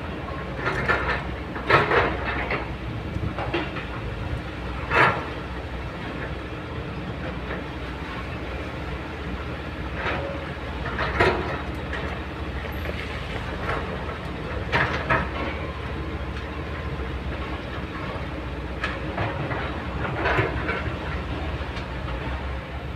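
Kobelco crawler excavator's diesel engine running steadily under digging load, with loud bursts of scraping and clanking every few seconds as the steel bucket works into rocky soil and stones.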